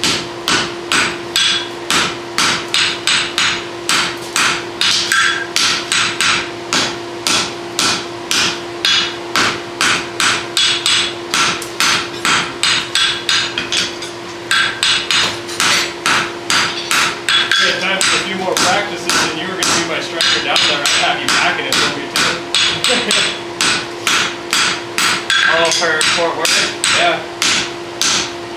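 Hand hammer blows on red-hot steel on an anvil, forging a draft horseshoe: a steady run of ringing strikes, about two to three a second, with a brief pause about halfway through. A steady low hum runs underneath.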